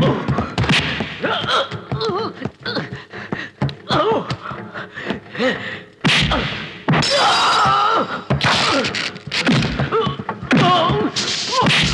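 Movie fight sound effects: a quick run of punches and body blows landing, mixed with men's grunts and yells.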